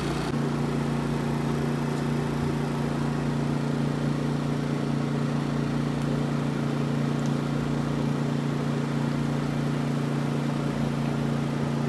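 An engine idling steadily: an even, low hum with no change in pitch.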